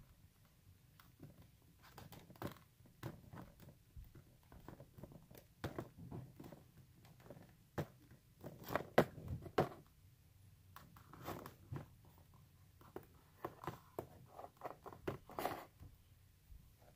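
Small plastic toys handled and set down on a cardboard box: scattered light clicks, taps and rubbing, busiest near the middle and again near the end.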